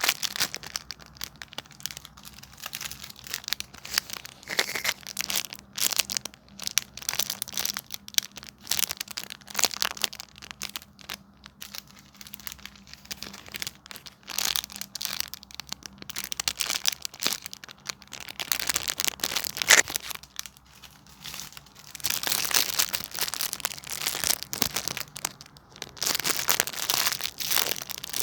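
Homemade squishy toys being squeezed and handled: irregular crinkling and crackling, denser and louder in stretches near the end.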